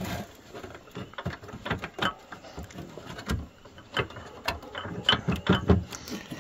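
Irregular clicks, knocks and rattles from a fourth-generation Pontiac Firebird pop-up headlight motor as it is wobbled by hand in its mount. The motor is stuck and will not come free; the loudest knocks come near the end.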